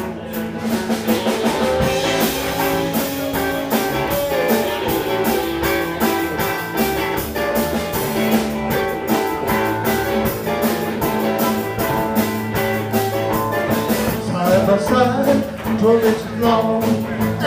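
Live blues band playing the instrumental opening of a song: two electric guitars, one bending notes in a lead line, over a steady beat of drums and electric bass.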